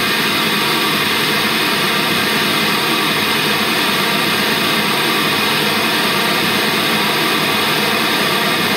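Takara Dance TDA-6B car-audio speaker hissing steadily as it plays pink noise for a loudness measurement.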